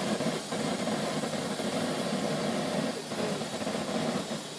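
Steady rushing hiss of butane escaping from a cracked disposable lighter held open, fading near the end.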